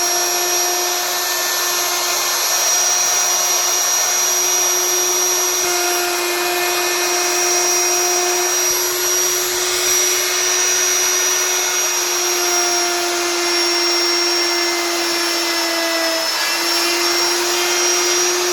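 Electric power tool motor running steadily at high speed with a whine. Its pitch sags briefly near the end, as if under load.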